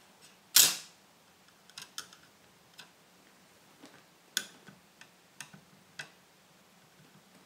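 Thin copper-sheet heatsink being handled and pressed down over the chips of a ZX Spectrum circuit board: a louder clatter about half a second in, then scattered light clicks and taps of the copper against the board.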